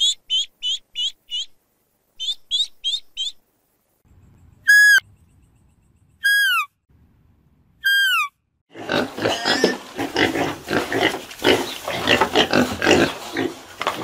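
Ducklings peeping in two quick runs of short, high peeps. Then three high calls from a deer, each falling in pitch. From about nine seconds in, a herd of pigs grunts continuously, with many grunts overlapping.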